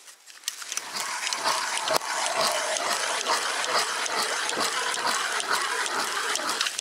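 Ice auger boring a hole through river ice: continuous grinding and crunching of the blades in the ice, with crackling chips and water, starting about a second in.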